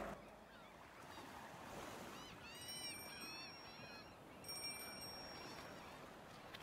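Gulls calling faintly, a quick run of arching cries about two to three seconds in, over a soft wash of surf.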